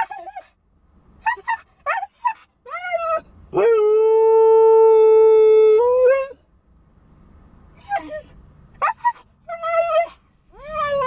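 Husky puppy crying inside a car: several short whines and yips, then one long steady howl of about two and a half seconds that lifts in pitch at its end, then more short whining cries. The whining and howling are the husky's protest at being left alone.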